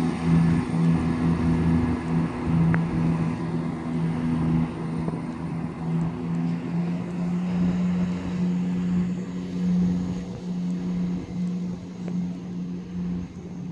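Class 168 diesel multiple unit pulling out, its underfloor diesel engines giving a steady drone whose pitch steps up slightly about halfway through and which slowly fades as the train moves off.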